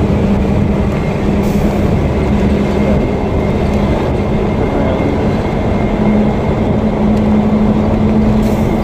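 A truck at highway speed, heard from the cab: a steady, loud drone of the diesel engine with road and wind noise, and a low hum holding one pitch.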